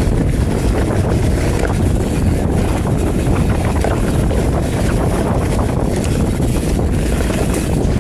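Wind rushing over the camera microphone over the rumble of a Commencal Meta TR29 mountain bike's knobby tyres rolling fast down a dry dirt trail, with small clicks and rattles from the bike over rough ground.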